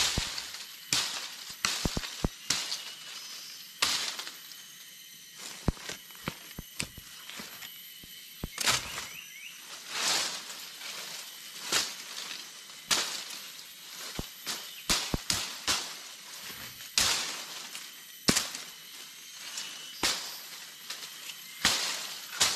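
Dry twigs and small branches of a fallen tree snapping and cracking by hand, with dead leaves rustling, in an irregular string of sharp snaps and short bursts of rustle.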